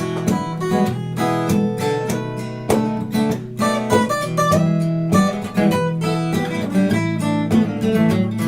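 Acoustic guitar strumming and picking chords in an instrumental passage of a song, with no singing.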